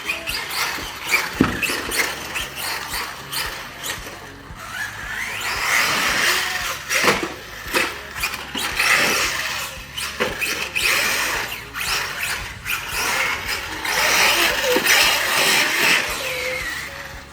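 Traxxas Sledge 6S RC monster truck driving on belted tires: its electric motor whines as it revs up and fades again in waves, with scattered knocks and clatter.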